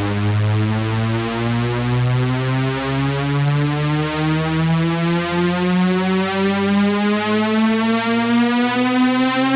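Electronic dance music build-up: a single synthesizer tone rising slowly in pitch in small steps, the music growing a little louder toward the end.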